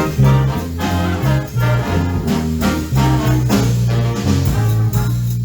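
A swing big band plays a medley of dance tunes: brass section chords over a walking bass with a steady swing beat.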